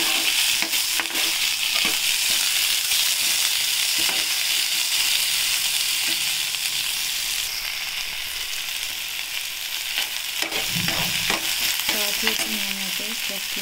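Sliced onions sizzling in hot oil in a metal kadhai, with a metal spoon scraping and stirring them around the pan.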